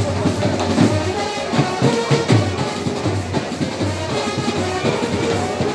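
Music with brass horns playing held notes over drum strokes.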